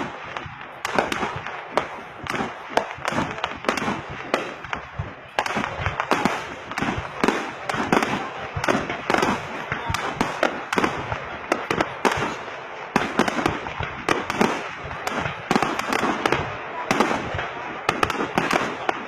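Fireworks display: aerial shells bursting in a rapid, unbroken run of bangs and crackles. The run grows louder and denser about five seconds in.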